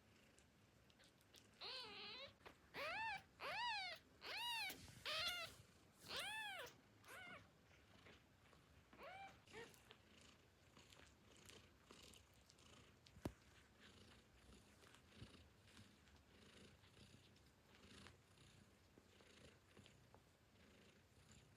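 Newborn kittens mewing: a quick run of about eight thin, high cries, each rising and falling in pitch, then two fainter mews a couple of seconds later.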